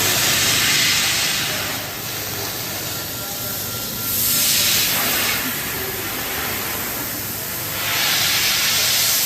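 5-axis fiber laser cutting head hissing in three bursts of about a second and a half each, the assist gas blowing through the nozzle as it cuts, over a steady low machine hum.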